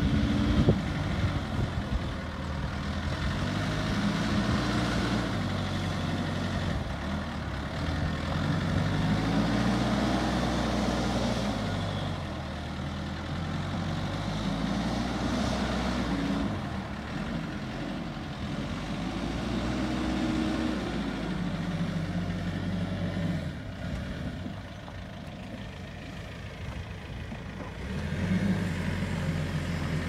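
JCB 4CX backhoe loader's diesel engine running under load as the machine drives and turns, its revs rising and falling about five times. There is a quieter, lower-revving stretch a few seconds before the end.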